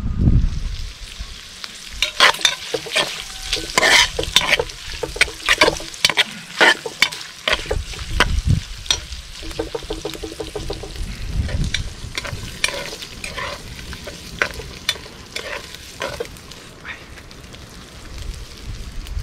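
Cubes of pork fat (salo) sizzling and popping as they render in a hot kazan, with a metal spoon stirring and scraping against the pot. The pops and clinks come thick through most of it and thin out near the end.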